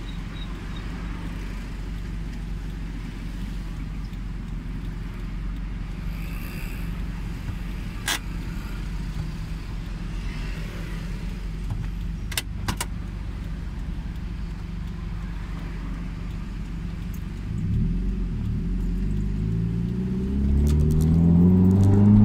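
Toyota Celica ST205's turbocharged 2.0-litre inline-four, with its exhaust freshly repaired, idling steadily as heard from inside the cabin, with a few sharp clicks. Near the end the engine revs up and grows louder, rising in pitch as the car pulls away.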